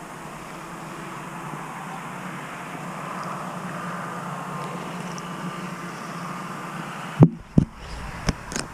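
A motor vehicle passing at a distance: a steady low running noise that swells toward the middle and then eases off. Several sharp knocks come near the end.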